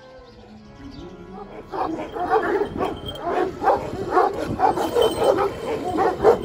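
Kangal shepherd dog barking in a rapid run at another dog across a fence, starting a little under two seconds in; soft background music before the barking.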